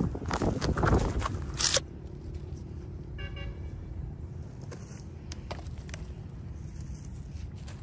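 Open-air ambience: a rush of wind noise on the microphone for the first couple of seconds, then a steady low rumble. About three seconds in there is a brief, high, pulsing toot, like a distant horn, and a few light clicks.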